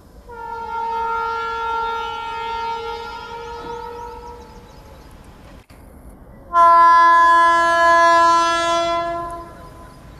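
WAG-12 electric locomotive's horn sounding two long blasts. The first is a higher note, held about five seconds and fading out. After a short break comes a lower, louder note of about three seconds.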